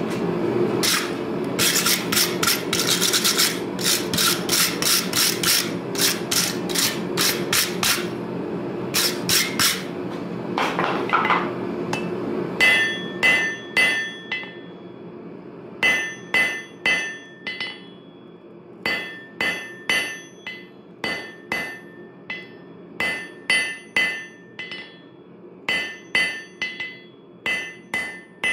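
A hand hammer forging a red-hot railroad spike on a steel block anvil, in quick runs of blows with short pauses. For the first twelve seconds or so the blows sit over a steady low rushing noise. After that each blow rings out with a clear metallic tone.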